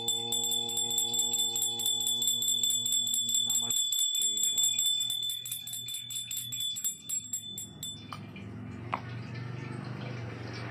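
A small brass puja hand bell rung rapidly and without pause, its high ring held steady, while a conch shell (shankh) is blown in one long, low held note over the first four seconds or so. The bell stops about eight seconds in, leaving only low background noise.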